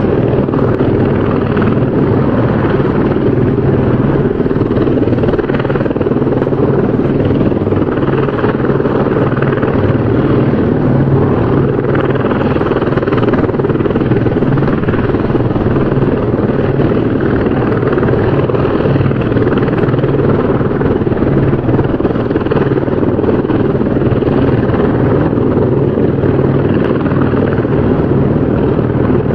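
Helicopter rotor and engine running steadily, a loud continuous flutter of the blades with a low droning hum.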